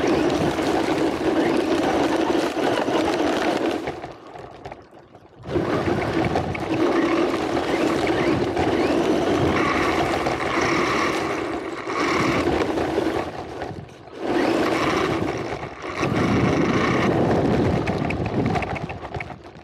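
Radio-controlled car driving over gravel, heard from a camera riding on the car: motor and tyres crunching on loose stones in runs of several seconds. It eases off about four seconds in and again around fourteen seconds.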